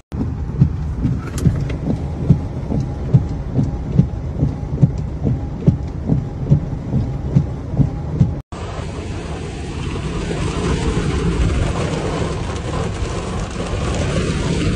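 Muddy flash-flood water rushing in a torrent, a deep rumble with regular thuds a little under a second apart. After a sudden cut about eight seconds in, a steady wash of heavy rain and water heard from inside a car.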